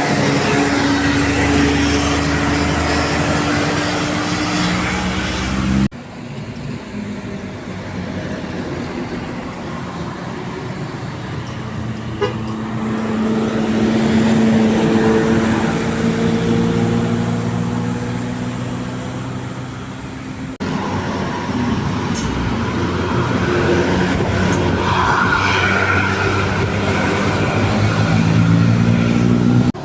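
Multi-tone bus 'basuri' (telolet) air horns sounding long held chords that drift slightly in pitch, over vehicle noise. The sound changes abruptly twice, about six and about twenty-one seconds in.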